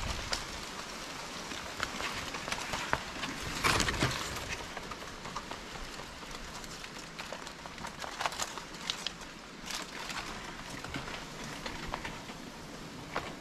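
Leaves and twigs rustling and crackling with scattered small clicks, with one louder rustle about four seconds in.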